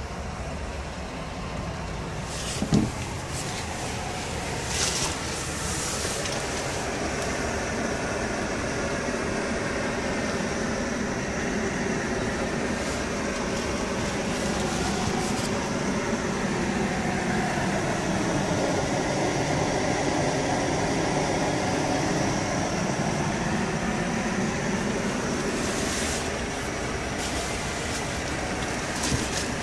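Steady vehicle noise, with a few sharp clicks and knocks; the loudest is a single knock about three seconds in, with a couple more clicks near the end.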